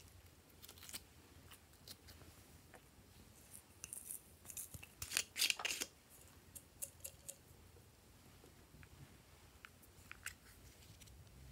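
Quiet handling of small plastic slime-making items, with scattered light clicks and taps. A quick run of sharp, crisp clicks and crackles about four to six seconds in is the loudest part.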